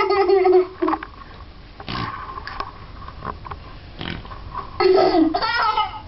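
A child making fart noises with a plastic cup in bathwater, laughing along. One noise ends under a second in and another comes about five seconds in, falling in pitch and then breaking into higher, wavering sounds.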